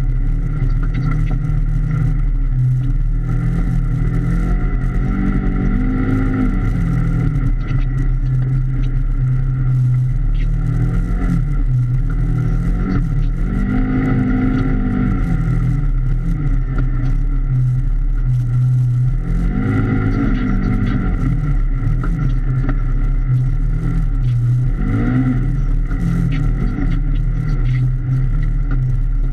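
Polaris RZR XP 1000 side-by-side's parallel-twin engine running under way, heard from inside the cab. Its note rises and falls as the throttle is worked, with several climbs in pitch about 6, 14, 20 and 25 seconds in.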